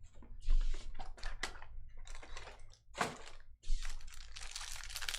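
Trading card packs and cards being handled: irregular quick clicks and short rustling, crinkling noises as wrappers are opened and cards flipped through.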